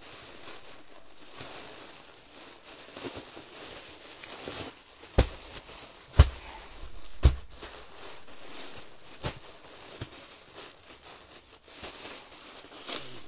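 Crinkling and rustling of clear plastic garment packets as a tied bundle of suits is opened, with three sharp thumps about a second apart just before the middle as packets are put down on the floor.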